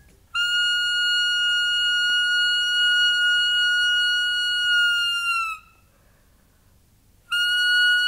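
A hand-held whistle blown in one long steady note of about five seconds, its pitch sagging as the breath runs out. After a short silence a second long note begins near the end.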